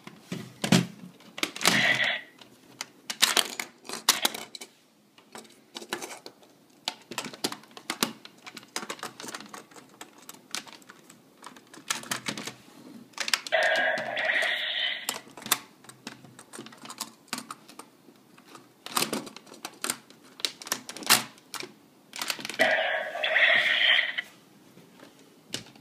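Plastic clicking and snapping of a GabuRevolver toy gun as Jyudenchi batteries are loaded and its cylinder and trigger are worked. Three times, about a second and a half each, the toy's small speaker plays its electronic sound effects.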